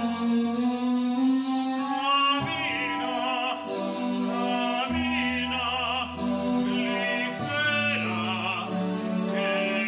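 Operatic singing with wide vibrato over sustained orchestral accompaniment, with the held chords changing every second or two.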